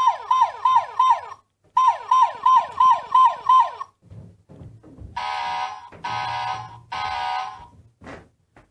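Battery toy fire engine's electronic sound effects from its small speaker: a fast yelping siren of falling sweeps, about three a second, broken by a short gap, then three short horn blasts about five seconds in.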